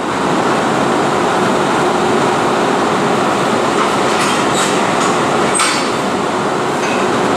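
WAP-7 electric locomotive standing at the coupling with a steady, loud running noise and a faint hum, with a few brief sharp sounds about four and five and a half seconds in.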